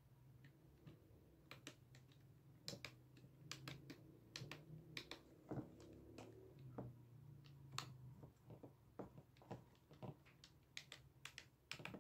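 Faint, irregular small clicks of the plastic buttons on an LP V55 wireless speaker being pressed to test them after a bent button was straightened, over a low steady hum.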